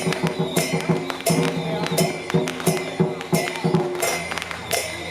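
Taiwanese temple-procession percussion playing: drum strokes and cymbal crashes in a steady, driving beat, about two crashes a second, over a few held pitched tones.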